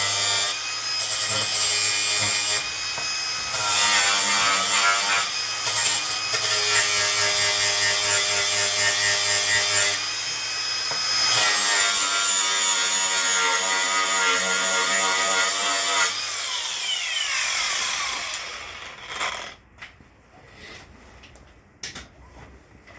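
Power grinder cleaning up a piece of scrap steel, a loud grinding with a shifting whine. About sixteen seconds in it is switched off and its whine falls away as the disc spins down, leaving a few light knocks.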